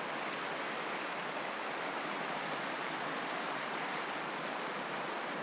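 Shallow mountain creek running over rocks: a steady rush of water.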